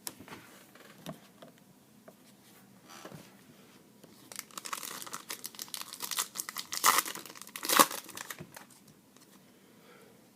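A trading-card pack wrapper being torn open and crinkled. There are faint scattered clicks at first, then about four seconds of dense crinkling and tearing with two sharp loud rips near the end.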